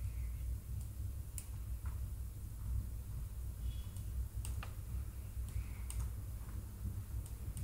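Several sharp, irregularly spaced clicks of a computer mouse over a low steady hum.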